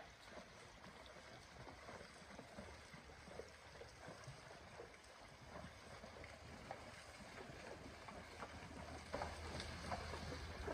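Faint splashing of horses wading through a shallow creek, with a few soft hoof splashes standing out. It grows a little louder near the end as the horses come closer.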